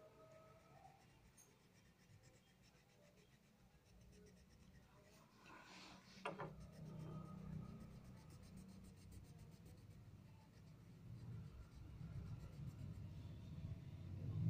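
Faint scratching of a wax crayon rubbed back and forth over paper as a drawing is coloured in, getting louder in the second half, with a short falling squeak about six seconds in.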